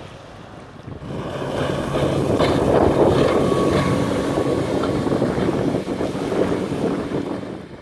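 Outboard motor of an aluminium workboat running at speed as the boat passes, getting louder about a second in and easing slightly near the end, with wind buffeting the microphone.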